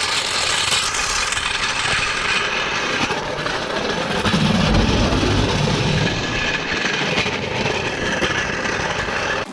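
Steel-wheeled floor jack being rolled across pavement, its casters and frame giving a steady rattling clatter.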